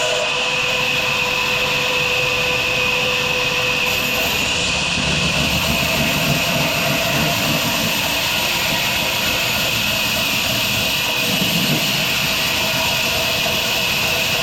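Sawmill machinery running steadily: a constant mechanical hum with a high whine over it, swelling slightly lower down a couple of times.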